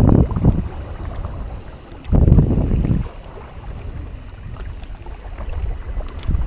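Wind buffeting the microphone in gusts, the strongest about two seconds in and lasting about a second, over the steady wash of water along a sailing kayak's hull.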